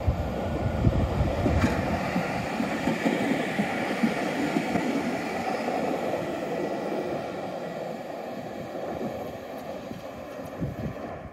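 Tatra KTNF6 articulated tram passing close by: a loud rumble of wheels and running gear on the rails, with a sharp click about a second and a half in, fading slowly as the tram moves away.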